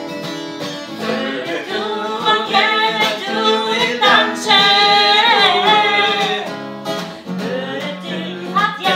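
A woman singing to a strummed acoustic guitar, her voice rising to loud, long held notes about halfway through.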